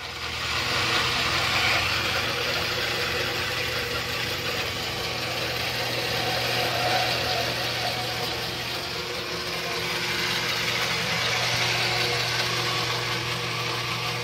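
Dayton horizontal metal-cutting band saw coming up to speed in the first second and then running steadily: a constant electric-motor hum under the hiss of the blade cutting aluminum extrusion.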